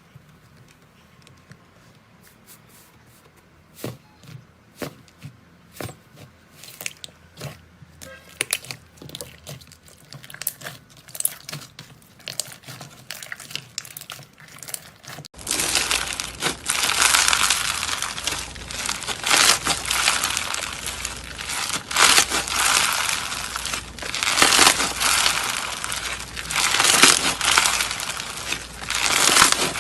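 Slime being handled: pressed and squished with soft sticky crackles and pops. About halfway through it switches abruptly to a much louder, dense crackling and crunching.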